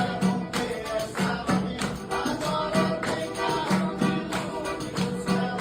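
Forró music: a quick, steady percussion beat with held notes under it.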